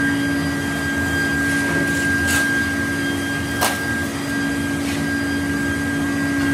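A machine tool running steadily, a constant hum with a thin high whine over it, and two sharp clicks about a second apart near the middle.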